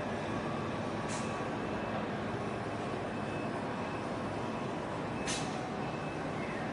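Steady engine drone and water noise from a motorboat under way, with two brief high hisses, one about a second in and one about two-thirds of the way through.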